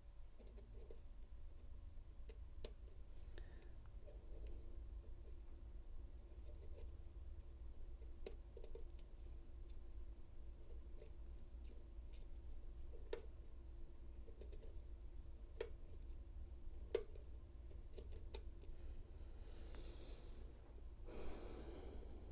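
KW1 Lishi 2-in-1 pick working the pins of a padlock cylinder: faint metal scraping and scattered sharp clicks, about half a dozen, as the pins are lifted and set. A brief rustle comes near the end.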